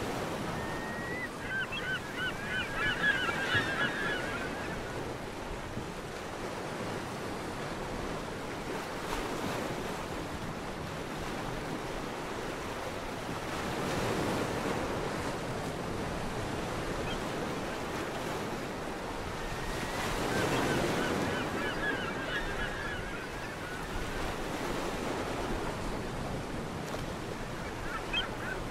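Surf washing on a shore, swelling and easing, loudest about fourteen and twenty-one seconds in. Runs of quick bird calls come over it in the first few seconds, again about twenty seconds in, and briefly near the end.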